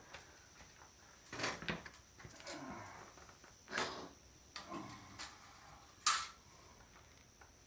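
Scattered clicks and knocks of electronic parts and circuit boards being handled, with a sharp click about six seconds in.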